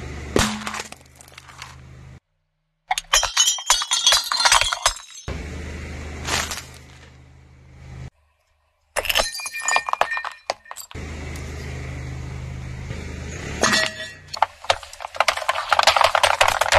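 Car tyre rolling over and crushing objects in a series of short cuts: a hard plastic candy container cracking and crunching, a glass jar shattering with clinking, ringing shards, then a row of aluminium soda cans crunching and bursting with a hissing spray. A steady low engine hum runs under the crushing.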